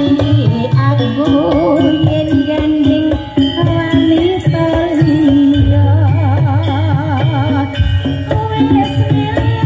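Recorded music with a singer, pitch wavering and ornamented, over heavy bass and percussion, played loud through a stacked outdoor PA sound system of full-range cabinets and subwoofers.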